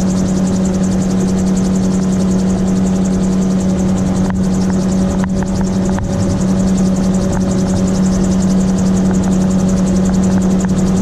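AutoGyro MT-03 gyrocopter in cruise flight: its engine and pusher propeller give a steady drone at one constant pitch. A few faint clicks come about four and five seconds in.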